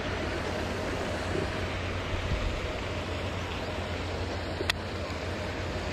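Steady wind rumble on the microphone with open-air hiss. A single sharp click comes about three-quarters of the way through.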